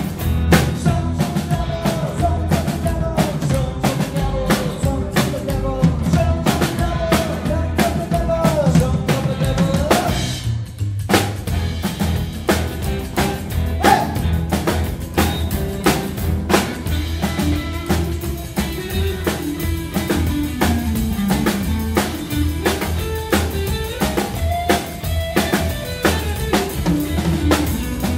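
Rockabilly band playing live: upright bass, drum kit with snare and rimshot hits, acoustic rhythm guitar and electric guitar under a bending lead melody. The band briefly thins out about ten seconds in, then plays on.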